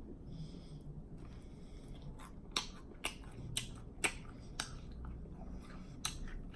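Open-mouthed chewing with lip smacking: sharp, wet clicks about twice a second, starting about two seconds in.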